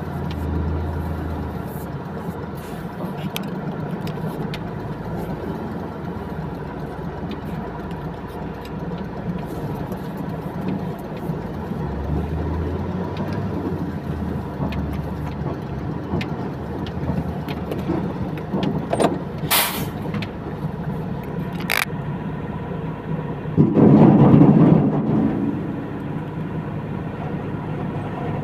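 Heavy diesel engine running steadily, with scattered sharp clicks and a louder rushing surge about four seconds before the end.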